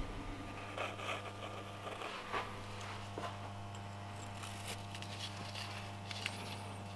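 Faint scraping and small clicks of gloved hands seating a metal ring onto a CV joint, over a steady low hum.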